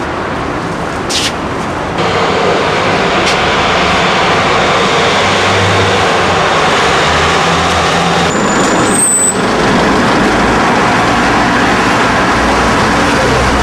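Street traffic and a minibus engine running as the minibus pulls up to a bus stop, with a brief high squeal of its brakes about eight seconds in.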